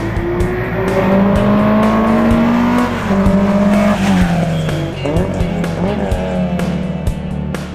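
Rally car engine revving hard as it approaches and passes close by: its pitch climbs, then drops as it goes past about four seconds in. Background music with a steady beat plays throughout.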